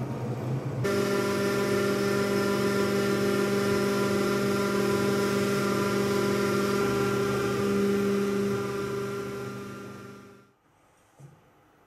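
Makera Carvera desktop CNC mill isolation-milling traces into a copper-clad PCB, its spindle and dust-extraction vacuum running as a steady whine with a hiss of airflow. It starts suddenly about a second in and winds down and stops near the end.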